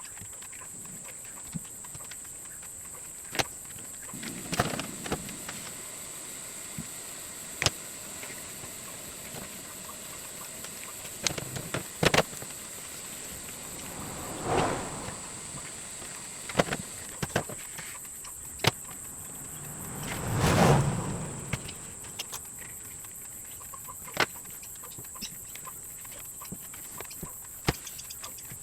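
Hand-sewing a leather sheath with a needle and waxed thread: scattered sharp clicks and taps as the needle is worked through the punched holes, and a few swishes about a second long as the thread is drawn tight, the loudest about two-thirds of the way through.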